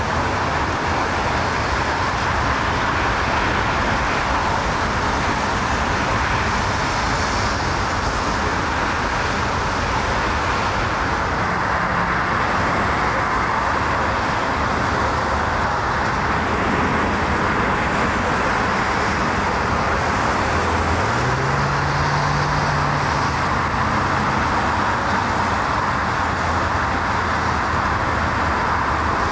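Steady roar of motorway traffic. A low engine note rises and holds for a few seconds about three quarters of the way through.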